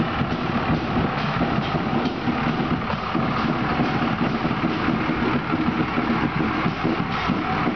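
Pickup truck engine idling as the truck rolls slowly past at close range.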